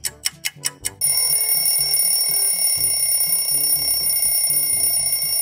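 An alarm clock ringing: a continuous high ring starts about a second in and holds steady, over a bouncy music track. It is the wake-up signal for the morning.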